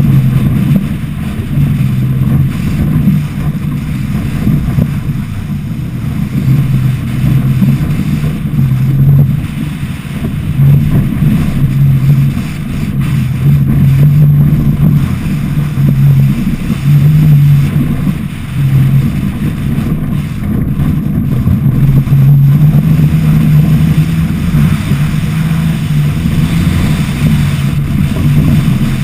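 Toyota Tacoma's engine running hard at speed over dirt, its note wavering up and down with the throttle, under heavy wind buffeting on the hood-mounted camera's microphone.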